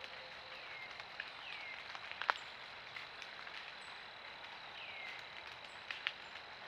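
Outdoor woodland sound picked up by a trail camera: a steady hiss under a thin, constant high tone, with scattered light ticks and one sharper snap about two seconds in. Three short falling whistles, a bird calling, come at about half a second, a second and a half, and near five seconds.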